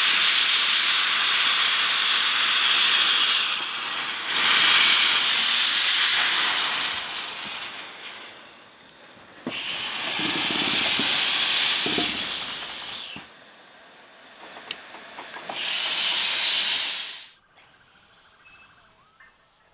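Loud hiss of escaping steam from Bagnall 0-6-0ST saddle-tank steam locomotive No. 401, coming in several long blasts of a few seconds each. It drops away sharply near the end.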